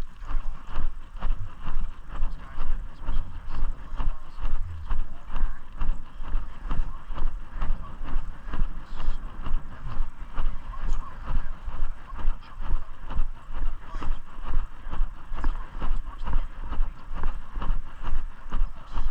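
Footsteps of a person walking at a steady pace, about two steps a second, over a steady low rumble on the microphone.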